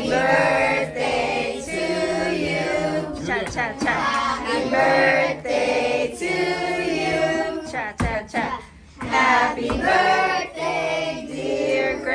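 Several voices, children's among them, singing a song together, holding notes and moving from note to note.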